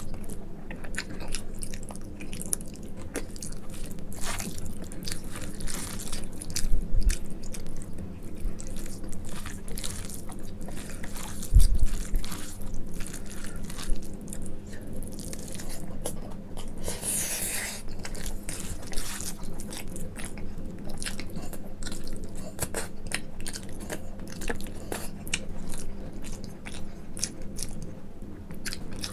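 Close-miked wet chewing and lip-smacking of handfuls of rice mixed with soft mashed brinjal bhorta, a dense run of small mouth clicks. Two low bumps come about 7 and 11 seconds in, and a short breathy hiss about 17 seconds in.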